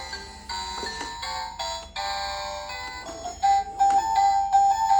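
Toy mini claw machine playing its beeping electronic jingle while the claw is being worked, a simple melody of short steady notes that grows louder in the second half.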